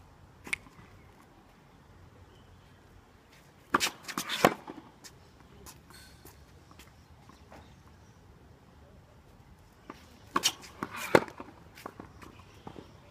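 Tennis racket striking a ball, with the ball bouncing and shoes scuffing on a hard court. Two bursts of sharp hits come about four seconds in and again about ten to eleven seconds in, with fainter single hits from the far end between them.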